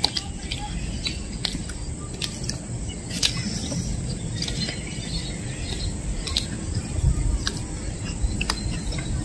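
Eating sounds: chewing and sharp mouth clicks and smacks from people eating pizza by hand, over outdoor ambience with small bird and insect chirps.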